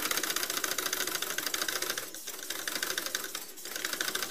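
Small homemade single-cylinder steam engine running on vacuum: a rapid, even clatter of ticks from its piston, crank and valve, with two brief dips in the rhythm in the second half.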